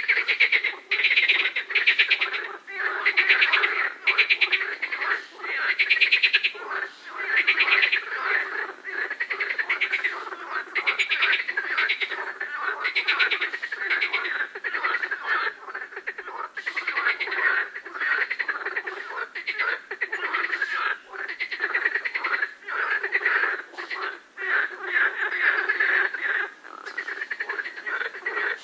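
A dense chorus of frogs calling over one another: overlapping trains of rapid, pulsed croaks that swell and dip every second or two, without a break.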